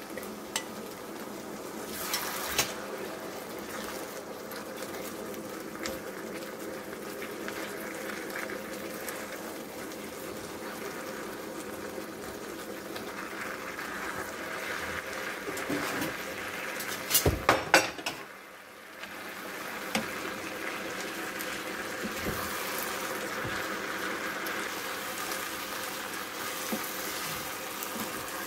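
Vegetables sizzling and bubbling in a hot non-stick frying pan as a dark sauce is poured in and a wooden spoon stirs it, with rice vermicelli worked in later. There is a cluster of loud knocks about two-thirds of the way through.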